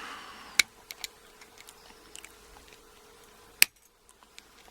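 Small metal clicks and scrapes from working at the retaining clip on a padlock's lock core, with a sharp click just under a second in and a louder one about three and a half seconds in.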